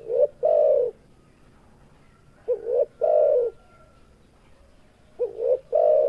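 Spotted dove cooing: three song phrases about two and a half seconds apart, each a quick double note followed by a longer coo.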